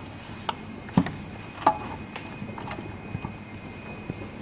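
Scattered knocks and clicks from handling parts inside an electric scooter's plastic deck as the battery pack is set in place and its cables arranged, the loudest knock about a second in. A steady hum with a faint high tone runs underneath.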